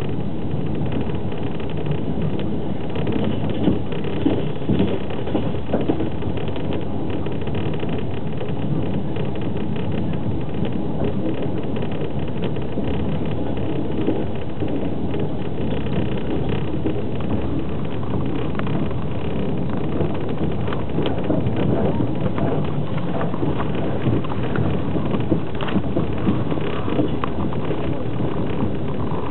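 Running noise of a moving passenger train heard from inside a platzkart (open-plan sleeping) carriage: a steady rumble of wheels on rails with many small clicks and rattles.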